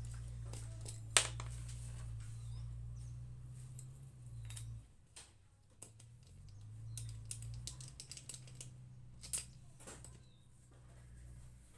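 Scattered light metallic clicks and taps of a T-handle box spanner on the gearbox casing bolts of a Hero motorcycle engine as they are undone one by one, with a sharper click about a second in. Under it a low steady hum drops out about five seconds in and comes back a little later.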